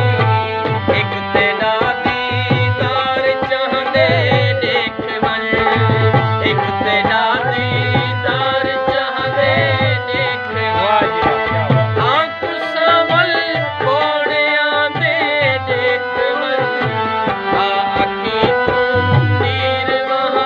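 Live folk music: a harmonium playing a melody over a steady tabla beat, with a man singing.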